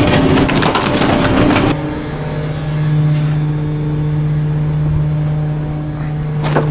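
Rear-loader garbage truck running fast, with dense crackling and clatter, then abruptly settling to a steady low idle hum about a second and a half in. A short hiss comes about three seconds in and a single knock near the end.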